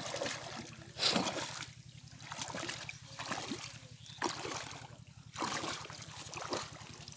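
Shallow river water splashing and sloshing in irregular bursts, roughly once a second, as a man wades knee-deep through it holding a wet cast net he has just hauled in.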